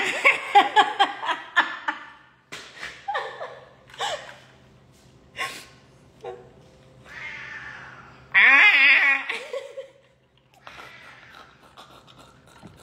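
Cat-like yowling and meowing: two loud, long warbling wails, one at the start and one about eight seconds in, with shorter meow-like calls and rapid stuttering clicks between them.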